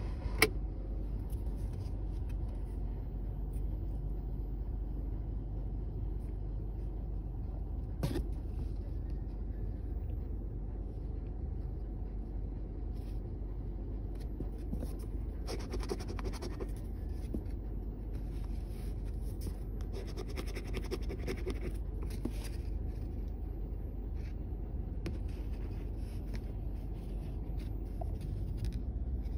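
A copper penny scratching the coating off a scratch-off lottery ticket in intermittent spells of short strokes, over a steady low rumble. Two sharp clicks, one just after the start and one about 8 seconds in.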